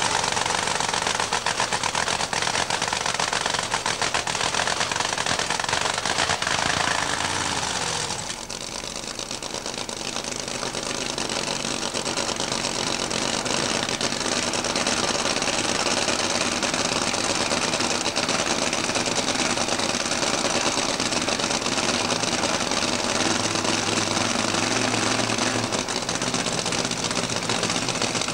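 Funny car's V8 drag-racing engine running in the pits with open zoomie headers, a fast, rough, rapid-fire beat, its tone shifting about eight seconds in.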